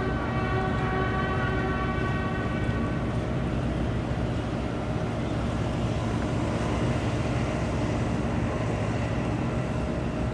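A bugle holding its last long note of the ensign-raising call, fading out about three seconds in, over a steady low machinery hum that goes on alone after it.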